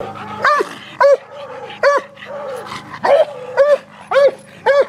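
Walker coonhound barking hard at a raccoon in a cage trap: seven loud, short barks about every half second to second.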